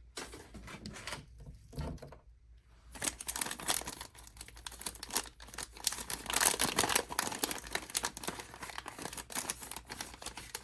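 A blind bag's packaging being torn open and crinkled by hand, with dense, irregular crackling for most of the time after a few scattered rustles at first.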